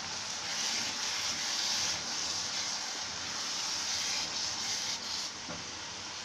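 Grated carrots in ghee and sugar sizzling in a nonstick pan while a spatula stirs and scrapes through them, the halwa being roasted. A steady hiss, louder from about half a second in until about five seconds.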